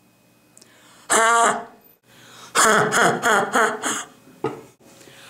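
A boy's short, ridiculous vocal noise about a second in, then a run of laughter in quick bursts.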